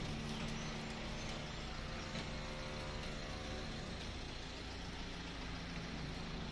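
Motor vehicle engine running with a steady hum, which eases off after about three and a half seconds.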